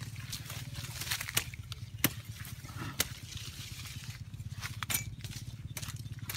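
Several sharp snaps and cracks of woody shrub stems being cut and broken off with a knife, over a steady low hum.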